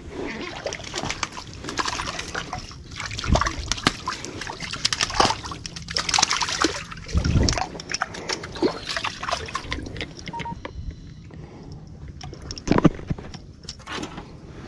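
Water splashing and sloshing as a hooked crappie is drawn to hand and grabbed at the surface, in irregular splashes with a few louder ones.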